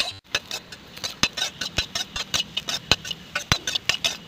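A steel spoon stirring diced beetroot in oil in an iron kadai, knocking and scraping against the pan several times a second over a light sizzle.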